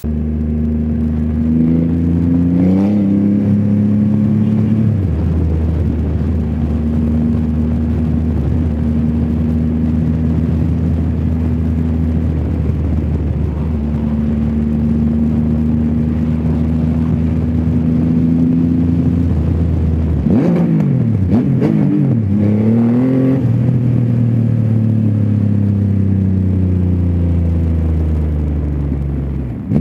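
Triumph Rocket 3 GT's three-cylinder engine through a Vandemon titanium exhaust, heard from the rider's seat. The engine note climbs as the bike pulls away about two seconds in, then holds steady while cruising. About two-thirds through it dips and revs up quickly, then falls away gradually as the bike slows.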